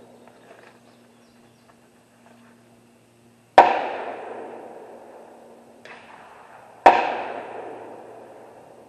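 Two loud gunshots at a shooting range, about three seconds apart, each echoing and fading slowly. A fainter, more distant shot falls between them.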